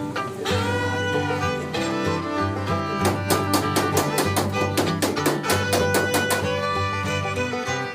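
Background music with fiddle and guitar, a run of quick plucked or struck notes in the middle.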